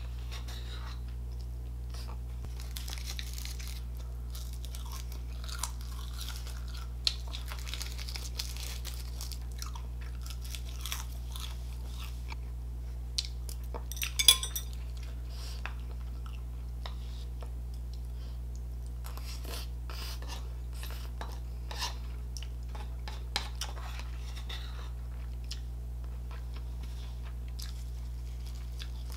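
Close-miked chewing and soft mouth sounds of eating rice and spicy braised tofu, with scattered small clicks of a metal spoon. A sharp clink of the spoon against a ceramic plate comes about halfway through. A steady low hum sits underneath.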